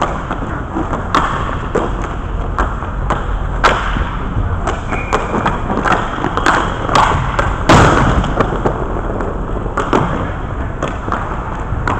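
Inline hockey play: irregular sharp knocks and clacks of sticks and puck striking the boards, the goal and the goalie's gear, with the loudest hit about three quarters of the way through, over a steady low hum.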